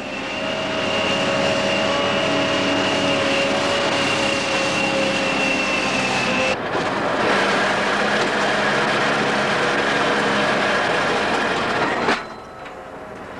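Heavy hydraulic excavator running hard, a steady diesel drone with a high whine over it. The sound changes abruptly about halfway through and drops away sharply near the end.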